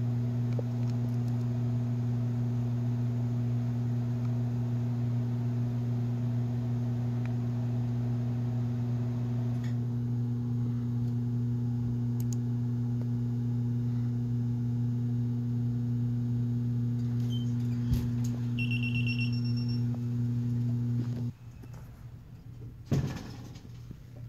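Steady low electrical hum with several overtones, which stops abruptly a little after 21 seconds in. About 19 seconds in a brief high electronic beep sounds, and near the end there is a short rustle of the phone being moved.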